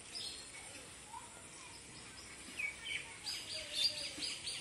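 Birds calling: a few scattered chirps, then a quick run of about five short repeated notes near the end.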